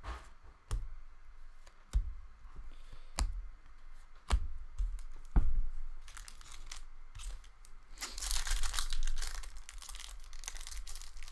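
A few sharp taps as cards and packs are handled, then from about eight seconds in a trading-card pack wrapper is torn open, with steady crinkling of the wrapper.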